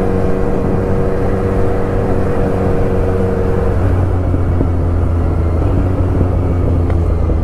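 Motorcycle engine running at a steady cruise, heard from the rider's seat over wind and road noise. About four seconds in, the engine note drops slightly as the bike eases off.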